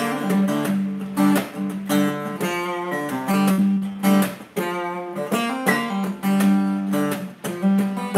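Acoustic guitar strummed in a rhythmic groove on a G chord, the open G string ringing as a drone under changing higher notes, with sharp percussive strokes between the strums.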